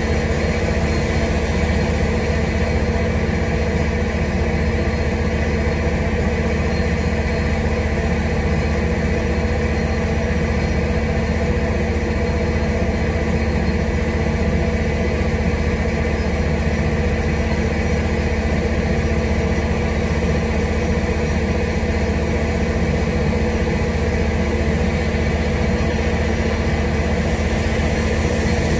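Heavy rain with a constant low machine hum beneath it, both steady and unbroken.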